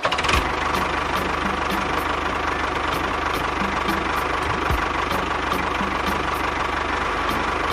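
Diesel tractor engine running steadily at a low, even pace with a regular knock.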